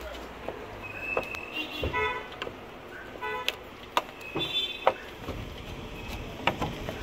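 A few short, steady-pitched toots like a vehicle horn, mixed with scattered sharp clicks and taps as a screwdriver works the screws of a plastic ceiling vent grille.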